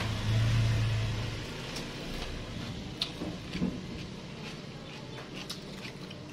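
A low droning rumble that fades away over the first second or two, then scattered light clicks and crackles as fried fish is picked apart by hand on a paper towel.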